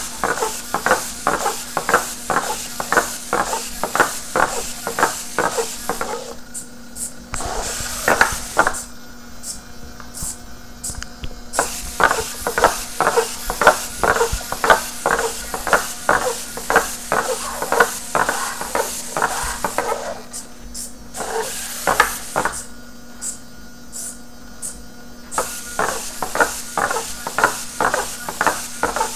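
Servos of an Innovati Mini Hexapodinno hexapod robot driving its legs as it walks, the plastic feet tapping and scraping on a smooth desk at about three taps a second. Twice the stepping stops for a few seconds, leaving a fainter steady servo whine.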